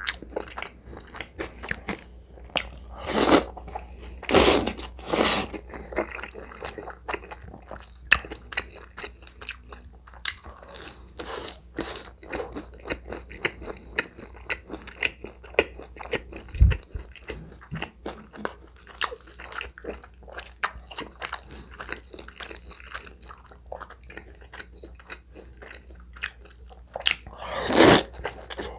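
Close-miked eating sounds: wet chewing with many small mouth clicks, and a few loud slurps of saucy spaghetti noodles, three around 3 to 5 seconds in and one near the end.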